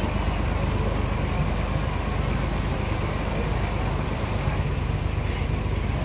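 Boat engine running steadily as a low, even drone, over a hiss of water washing past the hull.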